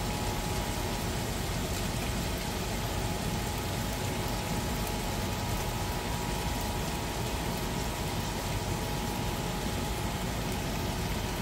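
Shrimp sizzling steadily in a hot frying pan, with a faint steady hum underneath.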